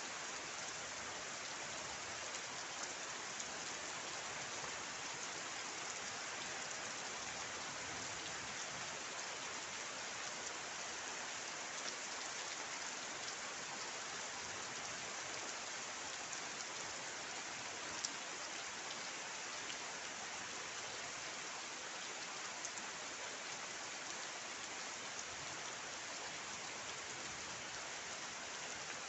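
Steady rain falling, an even hiss with a few louder drop ticks here and there.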